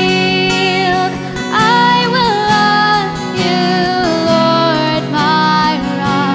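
Worship song: acoustic guitar accompaniment under a voice holding long, sliding sung notes.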